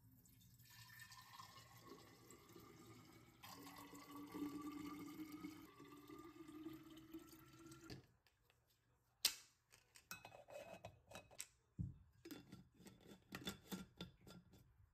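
Cooled boiled water poured from a stainless steel pot into glass bottles, its pitch rising as each bottle fills. The pour stops about eight seconds in. Then white plastic lids are clicked and screwed onto the glass bottles, in a run of sharp clicks and knocks.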